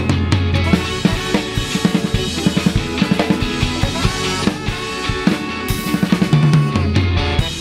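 Live ska band playing, with the drum kit loudest: a quick run of snare and bass-drum hits over bass guitar and held band notes.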